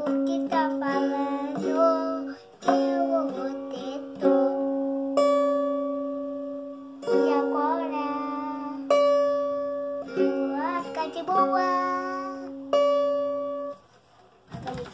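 A young child strumming a small acoustic guitar, one strum every second or two left to ring out, and singing in a child's voice over the chords. The playing stops about a second before the end.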